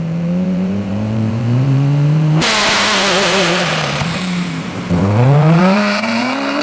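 AI-generated imitation of a rally car engine revving, its pitch climbing, with a sudden rush of noise about two and a half seconds in. The pitch dips about five seconds in and climbs again.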